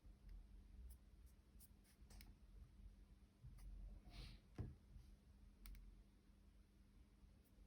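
Faint, irregular clicks and cracks from the palm rest of a 2021 14-inch MacBook Pro as it is pressed, with a somewhat louder crack and thump about four and a half seconds in.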